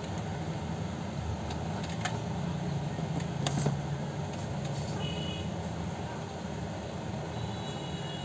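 Steady low background rumble, with a few faint clicks about two seconds in and again a second and a half later.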